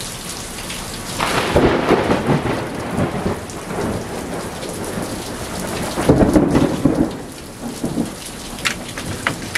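Rain falling steadily, with two rolls of thunder rumbling over it, one starting about a second in and another about six seconds in.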